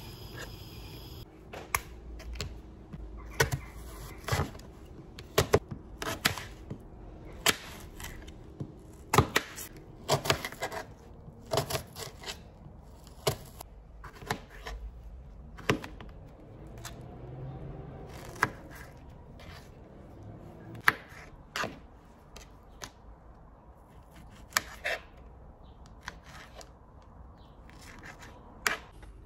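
Knife cutting fruit on a cutting board: irregular sharp knocks, roughly one every second or two, with quieter handling sounds between.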